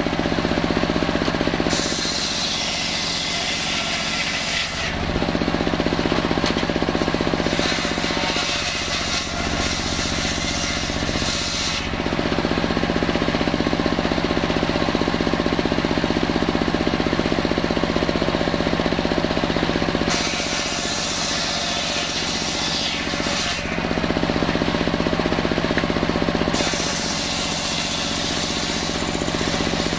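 Large bench-mounted circular saw running steadily and ripping lengthwise through salam timber, a constant drone under the rasp of the blade in the wood. The cutting rasp grows brighter and louder for a few seconds near the start and again about two-thirds of the way through, as the slab is pushed harder into the blade.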